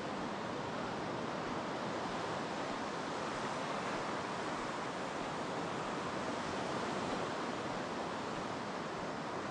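Ocean surf breaking on a sandy beach, a steady, even wash of waves.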